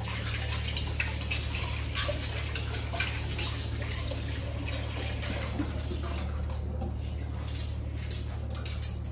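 Water running from a kitchen tap while cutlery is washed in the sink, with frequent light metal clinks, over a steady low hum.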